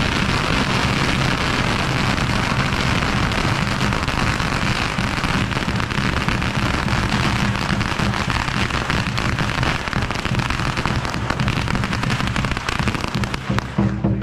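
A long string of firecrackers going off in a dense, continuous crackle that thins out near the end.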